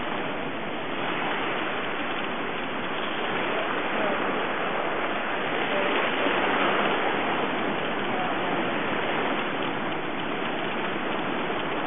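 Steady rushing noise, even throughout, with a few faint brief chirp-like sounds now and then.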